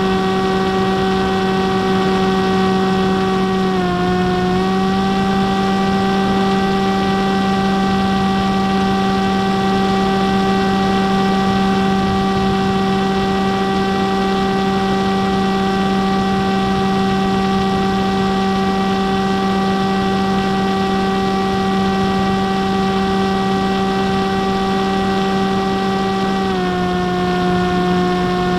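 Electric motor and pusher propeller of an F-27 Stryker RC flying wing, heard from its onboard camera: a steady pitched hum over a hiss. The pitch dips briefly about four seconds in, then drops to a slightly lower pitch near the end.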